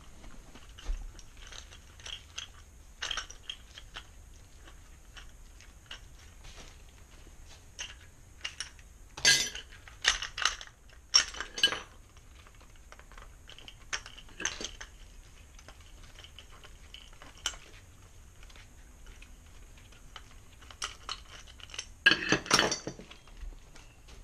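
Metal parts of a motorized-bicycle engine kit being handled, giving scattered clicks and clinks of metal on metal, with bunches of louder clatter about ten seconds in and again near the end.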